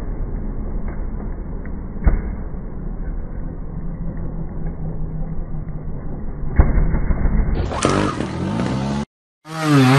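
Trials motorcycle engine running at low revs, with two sharp knocks as the bike comes down on rock, about two seconds in and again past six seconds. Near the end the sound cuts out for a moment, then an engine revs up and down.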